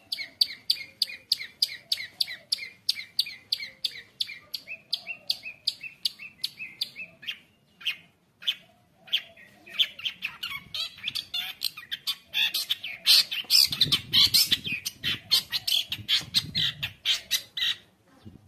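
Long-tailed shrike (cendet) singing in a frenzied run: sharp repeated chips about four a second, then after a brief pause about seven seconds in, a louder, denser harsh chatter with some low thumping under its loudest stretch, cutting off near the end.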